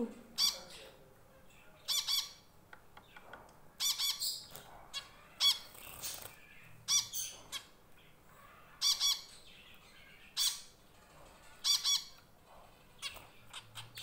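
Small white pet finches calling: short, sharp chirps repeated every second or two, some in quick pairs. The owner takes the calls for one bird calling another back to the cage.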